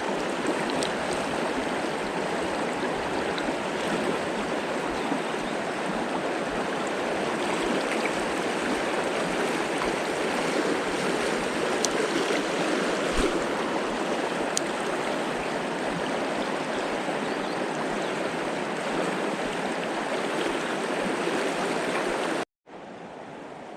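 Mountain river water rushing steadily, with a few faint clicks about halfway through. A cut near the end drops it to a quieter rush.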